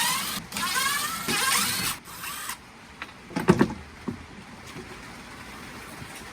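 A small electric motor whirring in short spurts, each rising in pitch, then a few knocks about three and a half seconds in.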